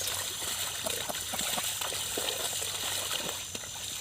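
Muddy water splashing and sloshing in many small, irregular splashes as bullocks drag a leveling board through a flooded paddy field.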